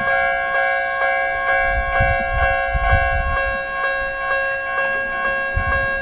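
Japanese railway level crossing bell ringing with a steady, regular beat of about two strikes a second, each strike ringing on so that the tones run together; a crossing described as having an unusual-sounding bell.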